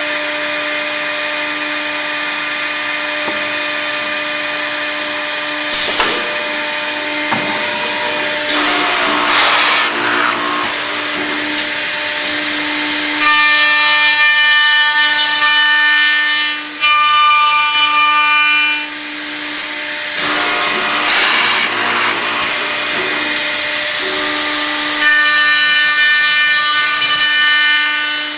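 Accu-Systems cup hinge boring and routing machine at work: its motors run with a steady hum while boring bits and a router cut into a wooden door in several bouts. The longest bout is in the middle, and it carries a high ringing whine.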